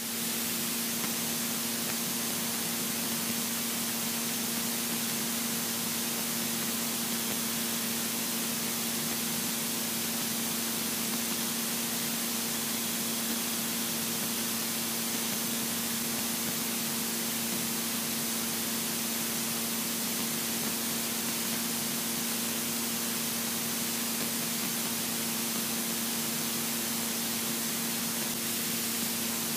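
Steady cabin noise of a Robin DR400 light aircraft in cruise: an even hiss with a constant engine-and-propeller hum beneath it.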